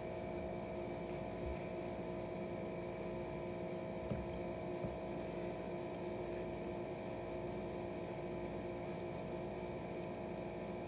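A steady hum made of several fixed pitches, with a faint click or two about four to five seconds in.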